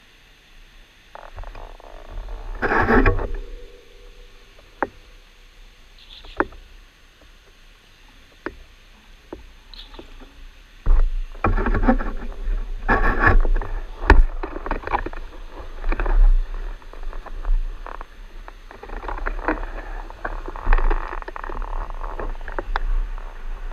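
Mountain bike rolling on hard-packed wet sand, heard from a bike-mounted camera: scattered clicks and rattles from the bike, then from about eleven seconds in a heavy, uneven rush of wind buffeting the microphone.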